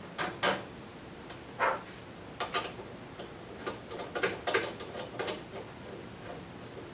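Scattered sharp metallic clicks and rattles, about ten in all, as the end of a heavy red battery cable is fitted onto a 12 V power inverter's positive input terminal and the terminal is done up by hand.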